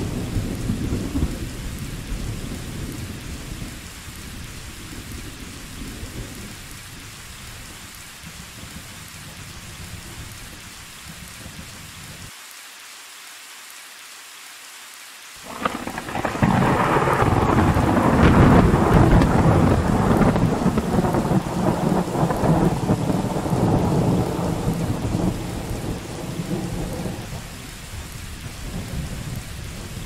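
Steady rain with thunder. A low rumble fades out over the first several seconds. About halfway through, a sudden clap of thunder swells into a loud rumble that dies away over about ten seconds.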